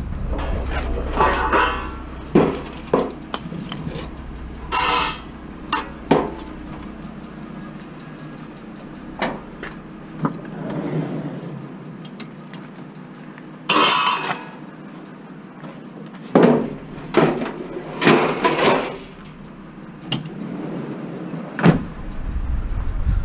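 Irregular knocks, clanks and rattles of hard objects being handled, with a vehicle engine's low rumble that fades out within the first few seconds and starts up again near the end.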